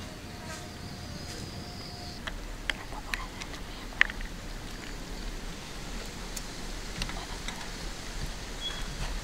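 Quiet outdoor background with a faint buzz of flying insects, a thin high whine during the first two seconds, and scattered short sharp clicks, the sharpest about four seconds in.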